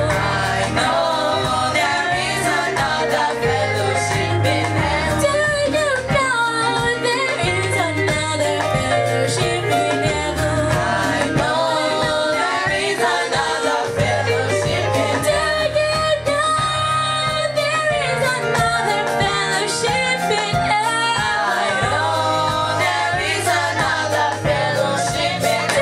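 Church praise-and-worship music: singing over instruments with a steady beat.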